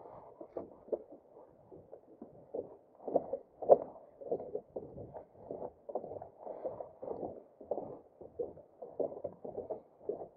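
Footsteps of a person walking, heard as dull, muffled thumps about two a second.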